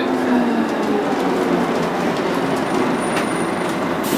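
Scania L113CRB bus running, with a steady rush of engine and road noise and a light click about three seconds in.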